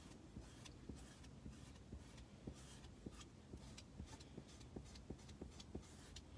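Faint, irregular light ticks, a few a second, from a small squeegee blending chalk paste over a silk-screen stencil on a chalkboard.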